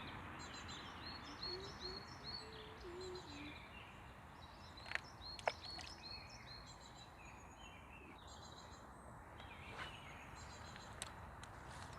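Small birds chirping and singing over a steady low outdoor background, with a few sharp clicks about five seconds in and again near the end.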